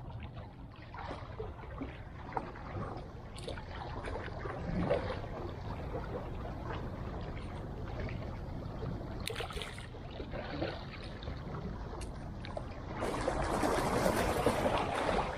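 Sea water lapping and splashing against breakwater rocks, a steady wash with a few faint knocks, growing to a louder rush near the end.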